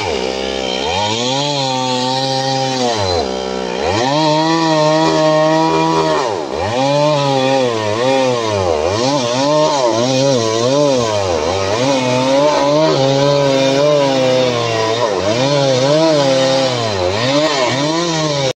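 Chainsaw running hard under load while cutting timber into planks, its engine pitch repeatedly sagging and climbing back about once a second.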